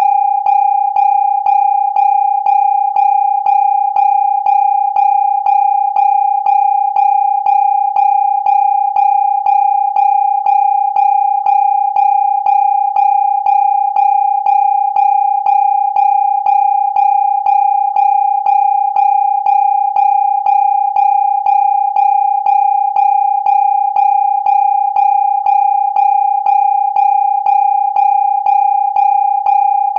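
Electronic siren sounding one steady high tone that does not rise or fall, with a slight pulse about twice a second.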